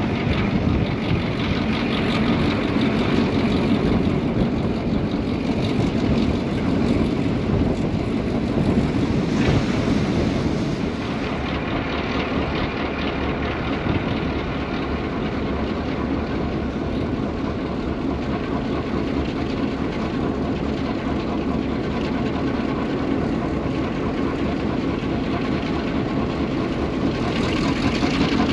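EMD 567B V16 two-stroke Roots-blown diesel of a locomotive running under power, heard close up from atop the locomotive. The engine sound eases a little about a third of the way in and builds again near the end.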